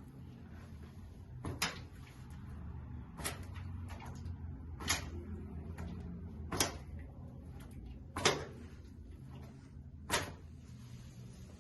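Six sharp knocks or clicks, evenly spaced about every second and a half to two seconds, over a low steady hum.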